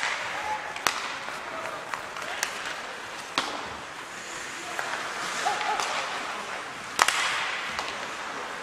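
Ice hockey play in a rink: several sharp cracks of sticks and puck striking, the loudest about seven seconds in, over a steady hiss of skates on the ice, with a few short shouts.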